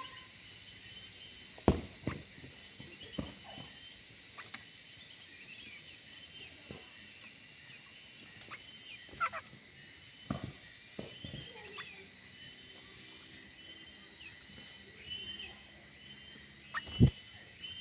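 Small aviary birds chirping and twittering in short calls throughout, with a few sharp knocks, the loudest near the end.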